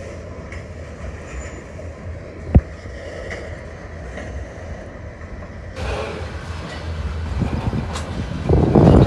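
Train of tank cars rolling past: a steady low rumble of wheels on rail, with one sharp knock about two and a half seconds in and a loud gust of wind on the microphone near the end.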